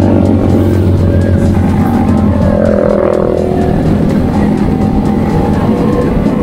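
Motorcycle engine running steadily while riding along.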